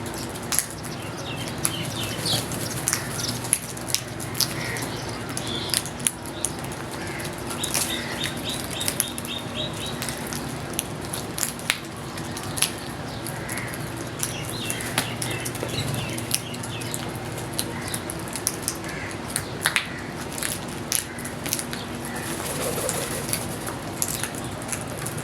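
Outdoor bird ambience: scattered sharp clicks and taps, with a few faint, quick high-pitched chirping trills of small birds over a steady low hum.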